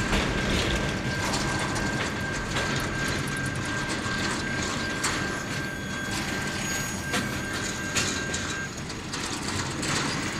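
Freight train wagons rolling past on the rails: a steady rumble with occasional clanks, and a thin high whine that stops about two seconds before the end.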